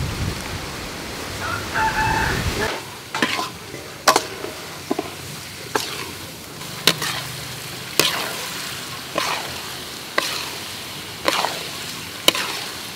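For the first few seconds a pot of soup boils as fish balls are dropped in. Then rice is stir-fried in a wok: a metal spatula scrapes and knocks the pan about once a second over a light sizzle.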